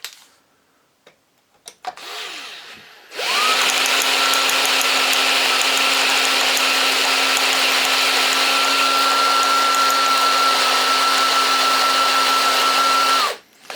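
Electric drill with a blunt 6 mm bit boring a hole through aluminium plate. It runs briefly at first, then starts again about three seconds in and runs loud and steady at constant speed for about ten seconds before stopping.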